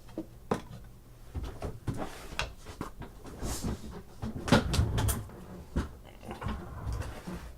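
Handling and opening a trading-card box: a string of irregular clicks, knocks and scuffs of cardboard and packaging, the loudest about four and a half seconds in.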